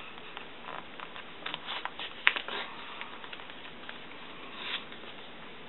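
Washi tape and paper planner pages being handled by hand: soft rustling as the tape is laid down and smoothed on the page, with scattered light clicks, the sharpest about two seconds in.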